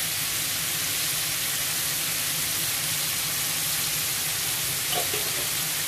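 Chicken pieces and sliced onion frying in hot oil in a pan: a steady sizzling hiss.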